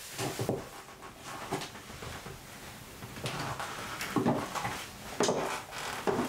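High-heeled shoes stepping on a wooden floor in a few irregular knocks, the last three louder, with the soft rustle of a satin dress in between.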